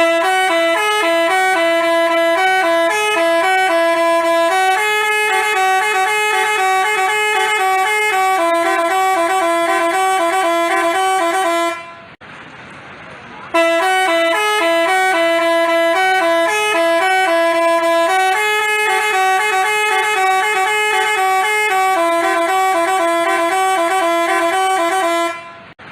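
Telolet basuri bus horn, the Indonesian multi-tone bus horn, playing a melody of short stepped notes. The tune runs for about twelve seconds, breaks off for a moment, and starts over.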